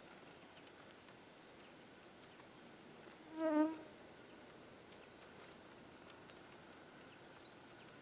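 A wasp buzzing briefly past close to the microphone about three and a half seconds in, a short wavering buzz. Faint high bird twittering comes three times.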